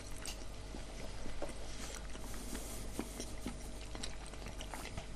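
Faint eating sounds: soft scattered clicks and small mouth and handling noises over a low steady hum.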